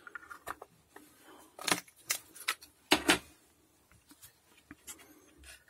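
Hands picking up and handling a subwoofer amplifier's circuit board: irregular light clicks and knocks, with louder knocks about two seconds in and again around three seconds in.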